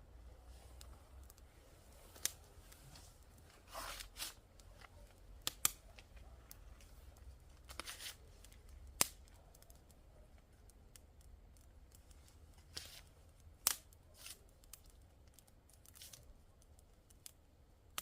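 Small wood-and-paper campfire crackling: sparse, irregular sharp pops and snaps, with a couple of brief rustles about four and eight seconds in.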